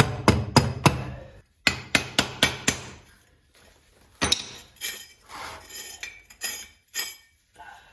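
Sharp metallic knocks and clinks as a diamond core drill bit is knocked to free the brick core from inside it: two quick runs of four or five knocks, then a few lighter, scattered taps.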